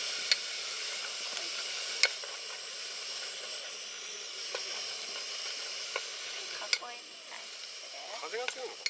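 Pork sizzling in an aluminium pot over a gas canister stove, stirred with chopsticks that click sharply against the pot several times.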